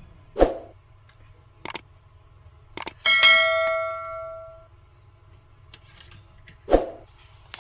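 A few short knocks and clicks, and one metallic ding about three seconds in that rings and dies away over about a second and a half.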